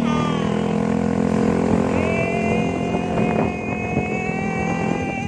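Yamaha Mio Gear scooter with an aftermarket Apido exhaust pipe, running at a steady cruising speed. Its engine note holds steady, with a constant whine coming in about two seconds in.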